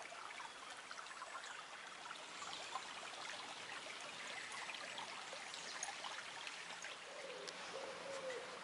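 Small shallow woodland brook trickling and babbling over stones, faint and steady.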